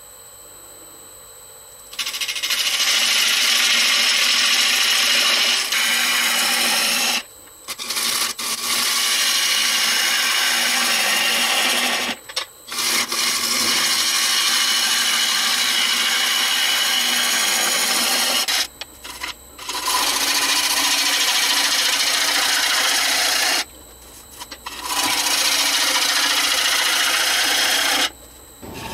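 Gouge cutting into the inside of a spinning Afghan pine box blank on a Laguna Revo 1836 wood lathe, hollowing it. The cutting starts about two seconds in and runs in steady spells of a few seconds, broken by five brief pauses when the tool comes off the wood.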